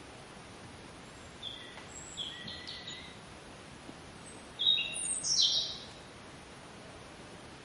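Songbird calls over a steady hiss: a few short, high chirps about a second and a half in, then a louder run of quick downward-sweeping calls about five seconds in.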